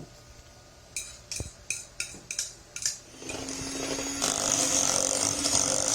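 A quick run of about seven clinks of a utensil against a mixing bowl. About three seconds in, an electric hand mixer switches on and runs steadily, beating cream into the cream cheese and condensed milk mixture until it is smooth.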